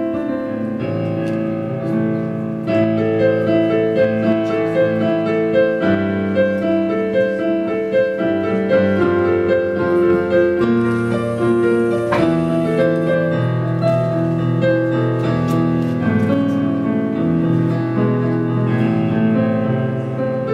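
Casio digital piano played solo: a melody over sustained chords and low bass notes, the instrumental introduction to a song.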